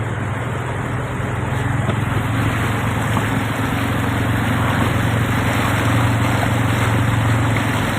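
A vehicle's engine runs steadily with a low hum under a constant rushing noise, growing a little louder in the second half, as it drives through a rain-flooded street.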